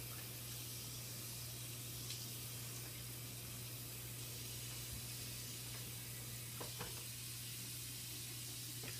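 Steady low hum and hiss of background room noise, with a few faint light knocks.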